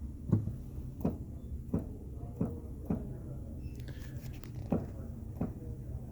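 Keys of a Roland RD-2000 stage piano pressed one after another with its sound turned down: the action's mechanical noise, seven dull thumps about one every 0.7 s with a pause in the middle. The keys have a springy bounce at the top of their travel.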